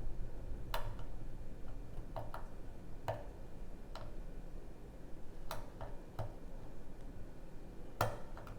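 A lock pick working the pins of a six-pin pin-tumbler lock: about ten short, sharp clicks at uneven intervals.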